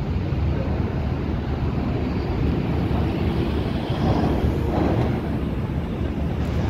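Steady low engine rumble with wind noise on the microphone.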